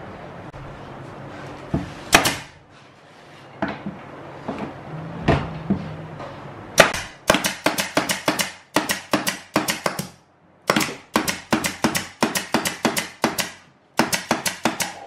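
Pneumatic brad nailer driving brads into plywood: a few single shots early on, then a fast run of sharp shots about three to four a second from about seven seconds in, with short breaks near ten and fourteen seconds as it is moved along the panel edge.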